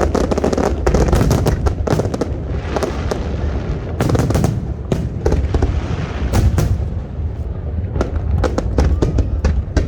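Fireworks display: many bangs in quick succession, overlapping one another, over a steady low rumble.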